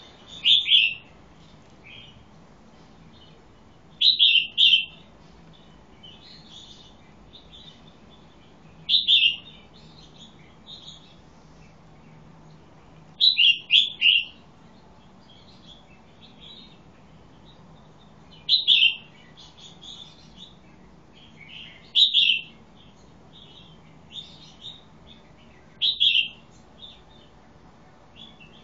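Red-whiskered bulbul singing short, loud phrases about every four to five seconds, seven in all, with softer chirps in between.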